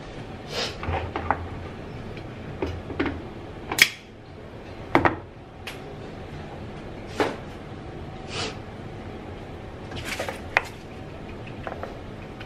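Irregular knocks and clinks of kitchen items, among them a tin can, being handled and set down on a stainless steel counter, the sharpest just before 4 s and around 5 s.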